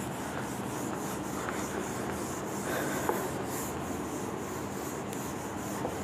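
A duster wiping marker ink off a whiteboard: a continuous rubbing of repeated back-and-forth strokes.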